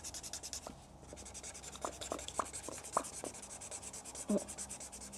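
Felt-tip marker scribbling on paper in quick back-and-forth strokes, colouring in an area, about ten strokes a second with a short pause about a second in. A few light clicks come through the middle, and a brief vocal sound near the end.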